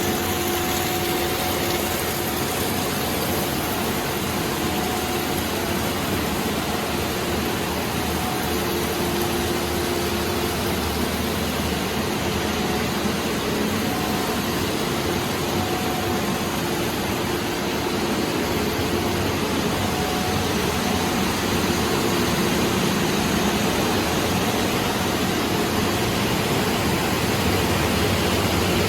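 Panko breadcrumb production-line machinery running: a steady noise with a hum that comes and goes.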